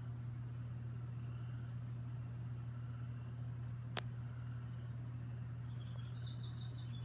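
A steady low hum throughout, with one sharp click about four seconds in. Near the end comes a short run of high bird chirps.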